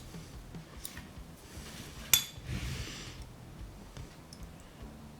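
Small metal hand tools and parts being handled on a workbench: a sharp metallic clink about two seconds in, followed by a brief scraping rustle, with a few faint clicks around it.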